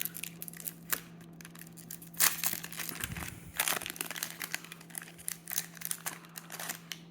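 Trading-card pack wrapper being torn open and crinkled by hand, with louder crinkles about two and three and a half seconds in. A faint steady hum runs underneath.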